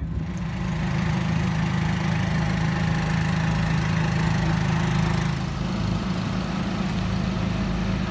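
An engine running steadily at idle, holding one pitch; the hiss above it drops off a little past halfway.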